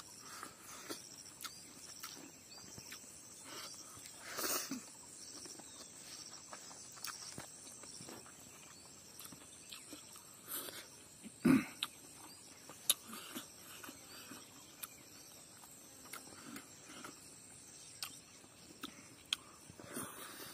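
Close-up eating sounds of a man chewing rice and smoked chicken eaten by hand: scattered wet smacks and clicks of lips and mouth, with one louder smack about four and a half seconds in and a short low mouth sound near the middle. A steady high insect drone runs behind.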